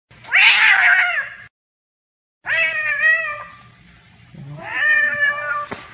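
Grey shorthaired cat meowing three times, each a drawn-out call of about a second with gaps of about a second between them.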